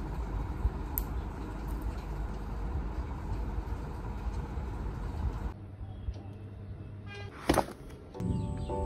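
Steady low background rumble with a few faint clicks, cut off suddenly; then one short sharp sound, and soft music with clear sustained notes starting near the end.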